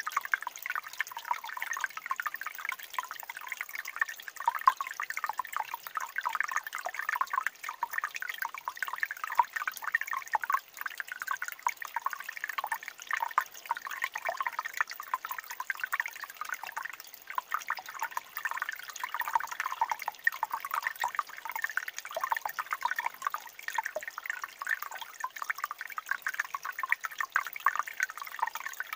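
Shallow stream water trickling and gurgling over stones, a steady chatter of small splashes and drips.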